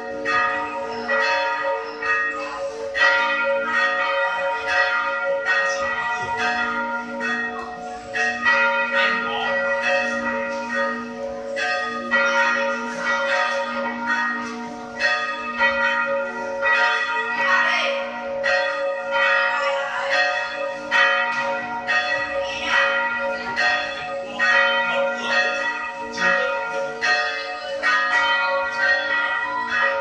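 Church bells rung by hand with pull ropes, struck again and again so that their tones overlap and ring on in a continuous peal.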